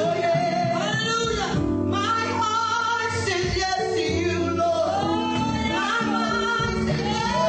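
Gospel praise team singing with instrumental backing: sung vocal lines over steady, held low accompaniment.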